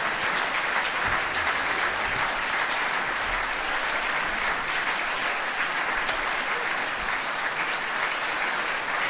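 Audience applauding: steady, even clapping that neither builds nor fades.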